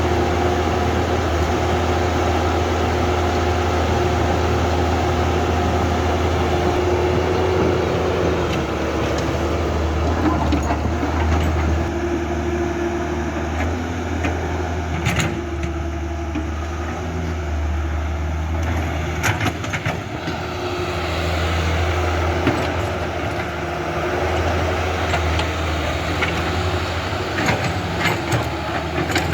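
Remote-controlled model excavator's motors running with a steady whir whose pitch shifts now and then as it works, broken by a few sharp clicks and knocks around the middle and near the end.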